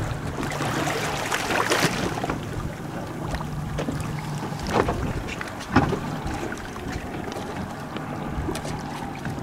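A boat's motor running low and steady, with wind buffeting the microphone and water noise. A few short knocks or splashes, the sharpest about two-thirds of the way through.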